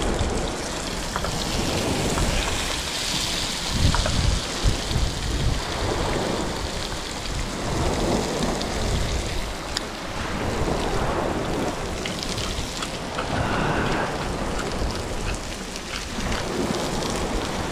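Wind buffeting the microphone in uneven low rumbling gusts over a steady rushing hiss.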